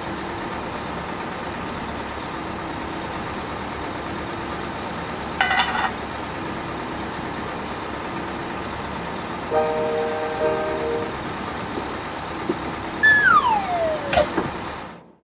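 City bus running, heard from inside the cabin as steady vehicle noise. A brief high tone comes about five seconds in, a few held tones around ten seconds, and a falling whistle-like glide shortly before the sound fades out.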